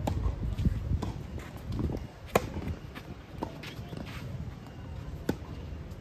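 Tennis rally on a clay court: sharp racket-on-ball hits and lighter ball bounces, the loudest hit about two and a half seconds in, with players' footsteps on the clay between.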